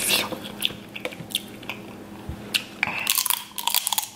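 Close-miked eating of sauce-covered snow crab legs: the leg is bitten into and chewed, giving scattered sharp crackles and wet clicks that grow busier near the end.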